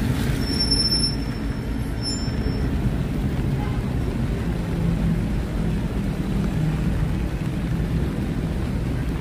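Road traffic rumbling past, with a vehicle's engine droning low. A thin high-pitched squeal sounds for about two seconds near the start.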